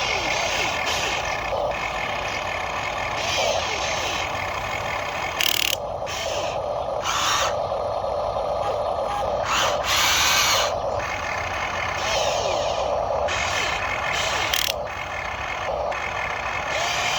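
Small electric motors and plastic gearboxes of hobby-grade Huina RC construction models whirring, switching on and off and changing pitch every second or two as the machines are worked.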